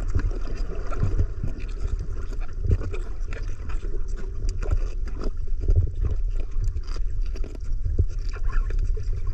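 Muffled underwater rumble of water moving against a submerged action camera's housing, with scattered clicks and crackles.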